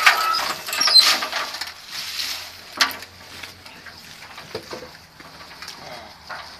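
Footsteps crunching and rustling through dry fallen persimmon leaves, loudest in the first couple of seconds, with one sharp knock near the middle, then quieter over a faint low hum.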